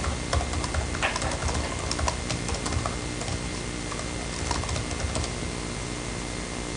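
Typing on a computer keyboard: irregular key clicks for about five seconds, then they stop, over a low steady hum.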